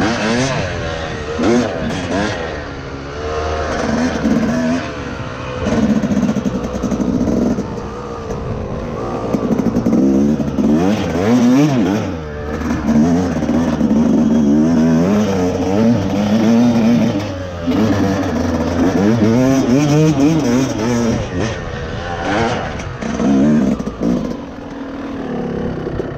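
Yamaha YZ250X two-stroke dirt bike engine being ridden off-road, its pitch rising and falling again and again as the throttle is opened and rolled off, heard from the rider's helmet camera.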